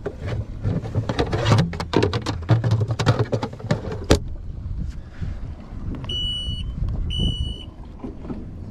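Twin Mercury Verado 300 V8 outboards running steadily underway. Over the engines, a console cover knocks and clatters as it is handled in the first few seconds, with a sharp knock about four seconds in. Two short electronic beeps follow, about a second apart.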